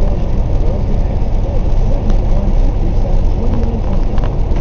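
Steady low rumble of a truck's engine and road noise heard inside the cab while driving through snow.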